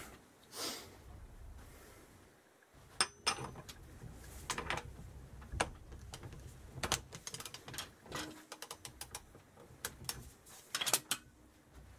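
Ratchet wrench clicking and metal tools clinking as a rotor puller is fitted and turned in the alternator rotor of a 1977 Kawasaki KZ650 engine. The clicks are irregular, some ringing briefly, with a loud cluster near the end. The rotor is tight on the crankshaft taper and not yet coming free.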